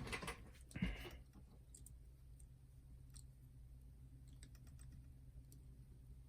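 Faint, scattered small clicks and taps of hands handling plastic parts and cables inside a boombox, with a louder knock about a second in.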